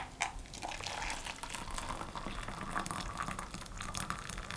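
Just-boiled water poured in a steady thin stream from a glass-and-steel electric kettle into a plastic measuring jug, splashing as the jug fills. A light tap right at the start.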